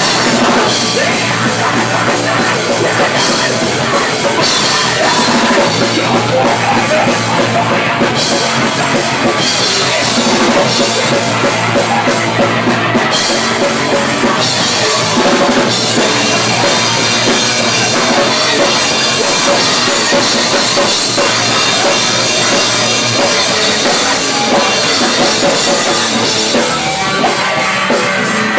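A live rock band playing loud and without a break: drum kit, electric guitar and bass guitar.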